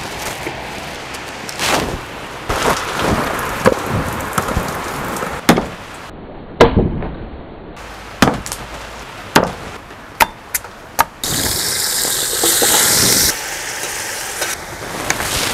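Quick succession of wood-fire cooking sounds: a wood fire crackling, wood knocking against a clay stove, sharp clinks and clatters, and a steady sizzling hiss for about two seconds a little past the middle.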